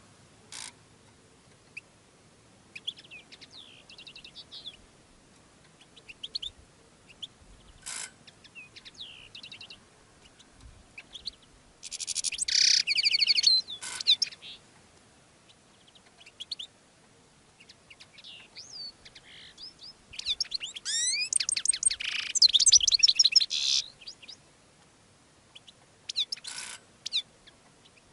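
European goldfinch courtship song: bursts of fast twittering and trilled phrases, loudest about twelve seconds in and again for several seconds from about twenty seconds in, with quieter stretches between.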